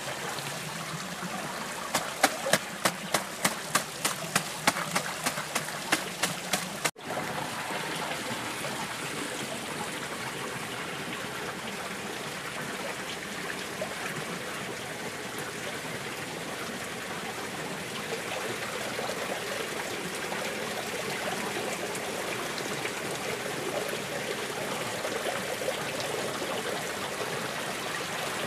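Muddy water running steadily from a hose and down a carpet-lined sluice box. Over the water, a quick run of sharp taps, about three a second, goes on from about two seconds in and stops about seven seconds in.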